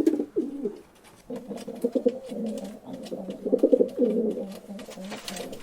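Pigeons cooing, several low calls overlapping and repeating, with a brief lull about a second in. Scattered light clicks and taps sound among the coos.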